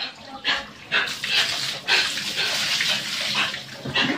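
Water splashing in short bursts, then running and pouring steadily for about two seconds, as a dog is washed.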